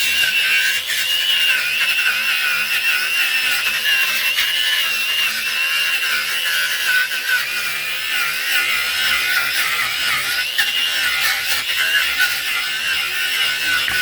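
Electric sander running steadily against pallet wood: a continuous high whine that wavers slightly with the pressure on the board, over the hiss of abrasive on wood.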